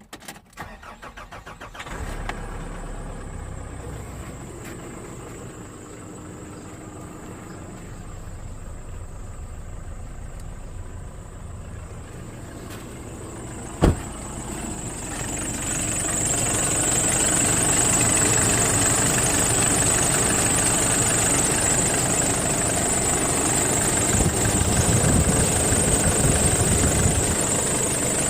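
Nissan D40 pickup engine cranked by the starter, catching about two seconds in and settling into a steady run. A single sharp click comes near the middle. In the second half the engine grows louder with a steady high-pitched whine, the abnormal 'bad sound' the owner is recording.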